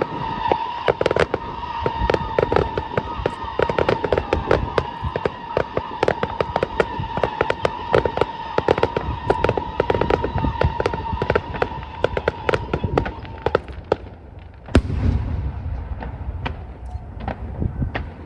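Aerial fireworks bursting: a dense run of rapid crackling reports over a steady high tone, both stopping about three-quarters of the way through. Then one loud boom with a low rumble after it, and scattered crackles.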